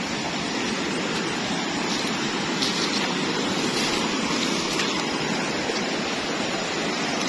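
Steady rush of a river's flowing water, swollen after rain, with faint rustling of grass and reeds being pushed through.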